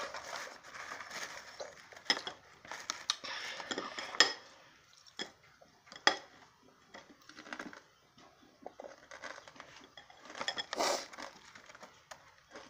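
Metal spoon scraping and clinking against a bowl while eating, with several sharp clinks, interspersed with mouth sounds of eating.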